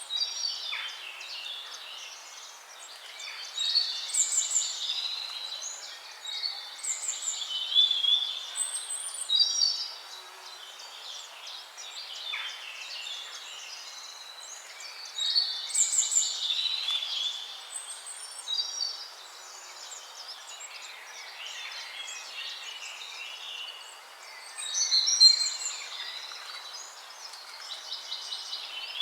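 Birds singing: bursts of varied chirps and warbled phrases come every few seconds over a faint steady hiss.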